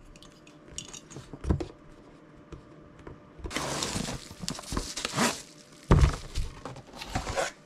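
Handling noise of unboxing: a cardboard box opened and a bubble-wrapped LED wall clock slid out, with a stretch of rustling cardboard and plastic bubble wrap. It is followed by a couple of sharp thunks as the package is set down, the loudest about six seconds in.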